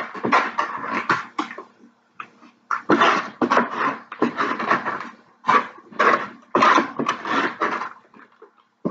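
Close-up eating sounds: chewing, and a fork scraping food from a foam takeout container, heard as a series of short noisy bursts with brief gaps between them.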